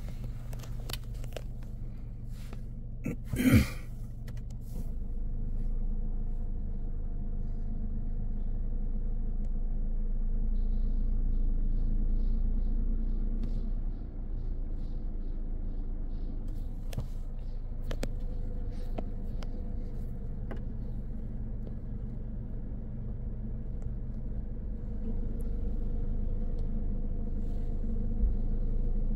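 Steady low rumble inside a car's cabin during a touch-free automatic car wash, growing louder about five seconds in. One short, loud sound about three and a half seconds in, and a few faint clicks later.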